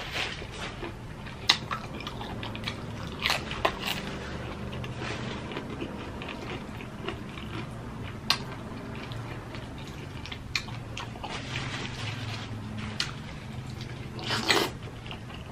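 Close-miked eating sounds: chewing fried chicken and then baked spaghetti. A few sharp clicks come from the fork against the glass baking dish, and there is a louder slurp of spaghetti near the end.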